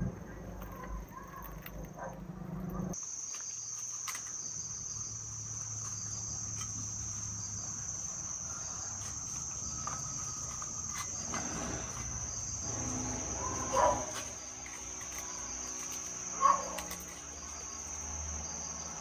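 Insects chirring in a steady, high-pitched drone, which grows stronger about three seconds in. Two short, louder sounds break in, about fourteen and sixteen and a half seconds in.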